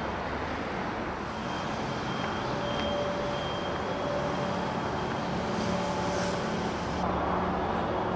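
Steady hum of road traffic, a continuous noise with no single vehicle standing out.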